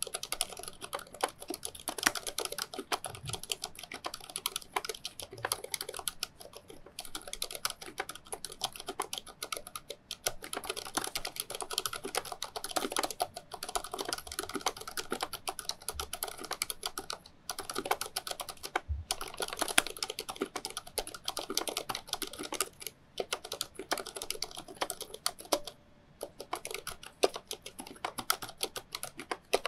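Fast, continuous touch-typing on a Waycos Thinkway Toche RGB full-size mechanical keyboard with Cherry MX Silent Red switches and thick sound-damping foam inside. It is a dense patter of keystrokes, broken by a few short pauses between bursts.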